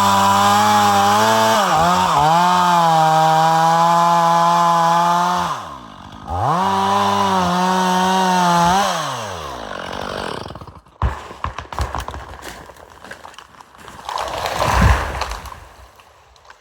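Stihl chainsaw cutting at full throttle, dipping briefly twice, then letting its revs fall away about nine seconds in. After that come scattered cracks and snaps and a heavy crash near the end: a white pine breaking off its stump and hitting the ground.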